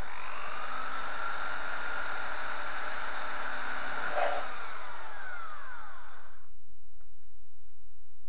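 Electric power drill running as it bores a hole through the thin steel of a tin can, with a brief louder noise about four seconds in. The motor's pitch then falls as it winds down, and it stops about six seconds in.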